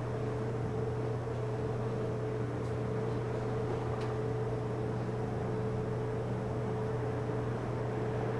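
Steady mechanical hum and hiss with a faint steady tone above it and a couple of faint ticks; no bird calls.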